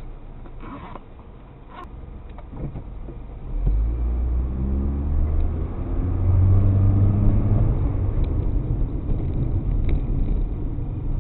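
Car engine and road rumble heard from inside the car: quiet at first, then about three and a half seconds in the engine note swells and rises in pitch as the car accelerates, before levelling off.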